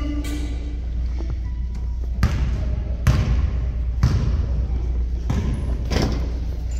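Basketball bouncing on a court, five bounces spaced roughly a second apart, over a steady low hum and faint voices.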